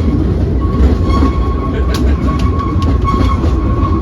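Train running: a steady low rumble from the wheels and cars, with a thin steady whine and scattered clicks over it.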